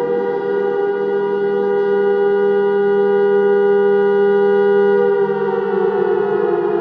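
Civil defense siren holding a steady chord-like tone, then slowly falling in pitch from about five seconds in as it starts to wind down.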